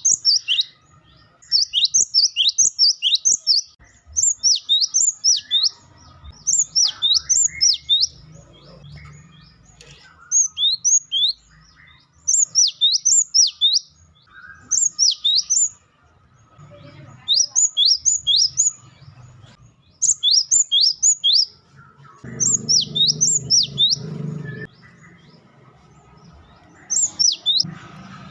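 Cinereous tit (gelatik batu) calling in loud, rapid bursts of sharp, downward-sweeping high notes, five to eight per burst. The bursts repeat about every two seconds with short pauses between them.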